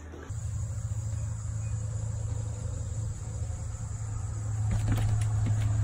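Insects trilling steadily at one high pitch over a low, even hum, both starting a moment in.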